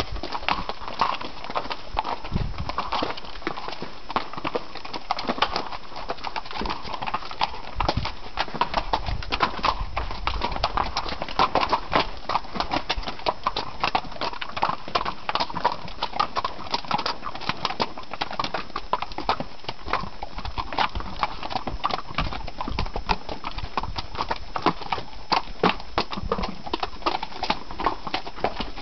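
A string of mules walking on a rocky dirt trail, their hooves clip-clopping in a steady, irregular patter of many overlapping hoof strikes.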